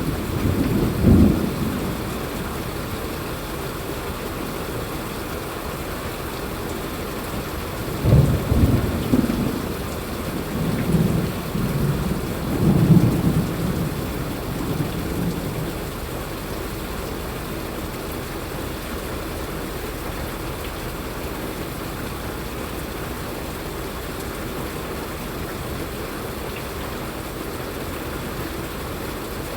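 Steady rainfall hissing, with thunder rumbling low about a second in and again, longer and rolling, from about 8 to 15 seconds in.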